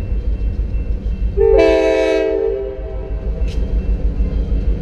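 Locomotive air horn on the Baldwin RS12 leading an approaching train sounds one blast of several notes together, lasting just over a second, about one and a half seconds in, part of its signal for the level crossing. A low rumble runs underneath.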